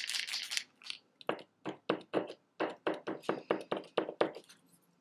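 Paint pen being shaken, the mixing ball inside rattling in a quick run of clicks, about four a second, which stops near the end.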